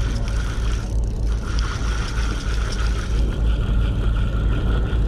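Charter boat's engine running with a steady low rumble, with a spinning fishing reel being cranked over it, its whirr pausing briefly about a second in.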